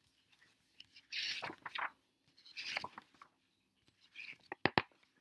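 Paper rustling in three short bursts as the pages of a picture book are turned, followed near the end by two sharp clicks close together.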